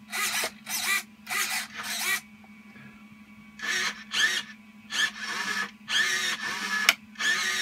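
Hobby servo motors in an R2-D2 droid build moving the door and arm in short, jerky steps under manual control. They make a series of quick whirring bursts, about two a second, with a pause after about two seconds and a sharp click near the end. A steady low hum runs underneath.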